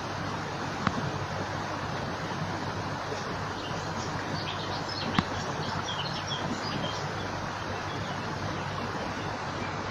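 Steady rush of running water with small birds chirping faintly over it, the chirps thickest in the middle. Two sharp clicks stand out, about a second in and again about four seconds later.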